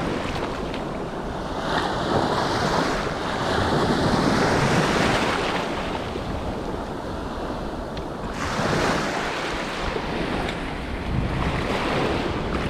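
Small surf washing up onto a sandy beach, the rush of water swelling twice as waves run in, with wind buffeting the microphone.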